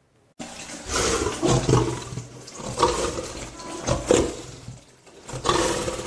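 Lioness vocalising close to the microphone: four loud, rough, breathy calls, roughly a second or more apart, starting just after the sound comes in.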